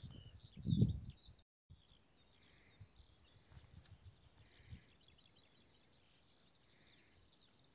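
Small birds singing, a continuous stream of rapid high chirps and trills. Near the start a low rumble of wind or handling on the microphone is heard, then a brief dropout.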